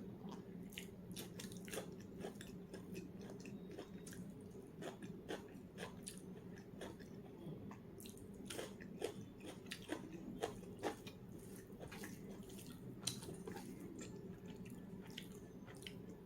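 A person chewing a meal of rice and curry close to the microphone: many small, irregular wet clicks and crunches of the mouth, over a steady low hum.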